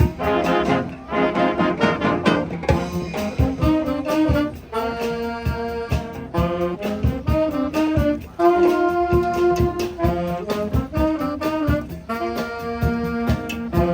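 Brass-led music: horns playing held and changing notes over a steady drum beat.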